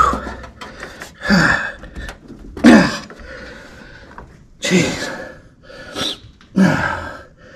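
A man grunting and exhaling hard with effort while straining to force a heater box into place. There are about five short groans, each dropping in pitch, and one of them is a muttered "jeez".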